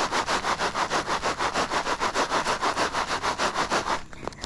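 Foam box of soil shaken rapidly back and forth, the soil shifting and scraping inside at about seven strokes a second, stopping about four seconds in. The shaking drives the nightcrawlers up out of the soil.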